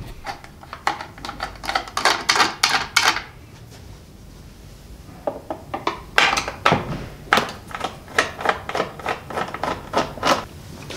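Irregular clicks and scrapes of a Phillips screwdriver working screws out of the plastic cover of a Minn Kota Riptide trolling motor head. They come in two runs with a pause of about two seconds between them.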